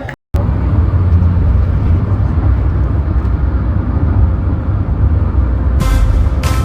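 Steady low rumble of a vehicle heard from inside, with music coming in near the end.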